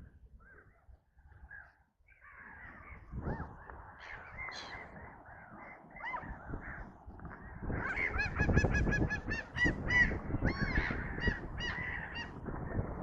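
Gulls calling: scattered faint cries at first, then from about eight seconds in a loud run of rapid, repeated cries followed by several longer, drawn-out calls.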